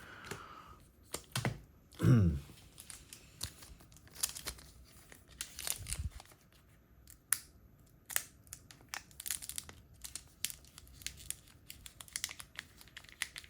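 Foil booster-pack wrapper crinkling and tearing, with irregular sharp crackles as cards and packaging are handled. A short falling voice-like sound about two seconds in is the loudest moment.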